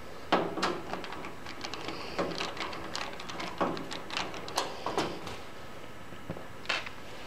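Small clicks and scrapes of screws being worked out of a Thermaltake V3 computer case by hand, then its side panel being slid off. The case came without thumb screws.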